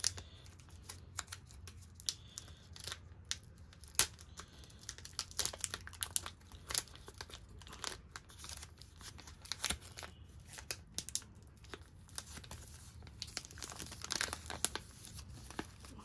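Foil-lined chocolate-bar wrapper being peeled and torn open by hand, crinkling and tearing in many short, irregular crackles throughout.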